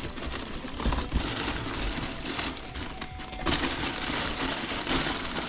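Packaging being handled during an unboxing: crinkling and rustling with many small clicks and knocks, growing louder about three and a half seconds in.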